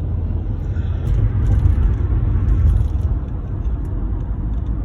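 Road and engine noise of a moving car heard from inside the cabin: a steady low rumble that swells a little in the middle.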